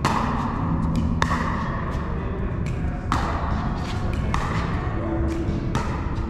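Pickleball rally: a hard plastic pickleball struck back and forth by paddles, a sharp hollow pop every second or so, echoing in a large indoor hall.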